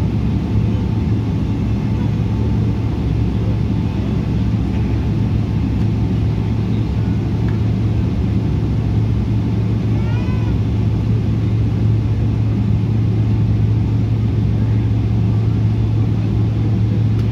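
Cabin noise inside a Boeing 777-300 taxiing: the engines' steady low hum over a constant rumble, even in level throughout.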